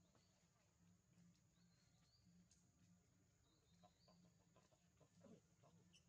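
Near silence: faint outdoor background with a steady high hiss and a few faint, short rising chirps.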